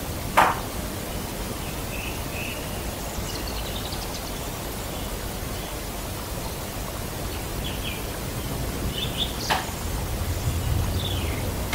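Steady hiss of a camera's microphone left recording in a quiet room. Two sharp clicks break it, the louder one about half a second in and another near the end, with a few faint high chirps in between.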